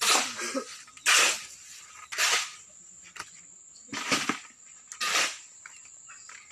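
Gritty scrapes of a steel shovel scooping cement mix off a concrete floor, five strokes about a second apart.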